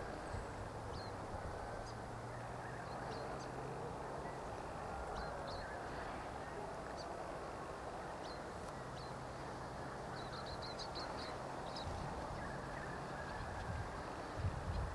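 Open-country ambience: a steady background hush with small birds giving scattered short high chirps and a quick run of chirps about eleven seconds in. A few low bumps come near the end.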